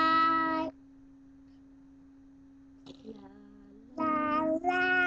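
A young boy singing long held notes: one at the start, then two shorter ones near the end after a pause, over a faint steady hum.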